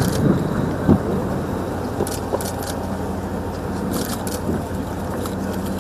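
Steady outdoor engine hum with a wash of open-air noise, and a few brief sharp clicks about two and four seconds in.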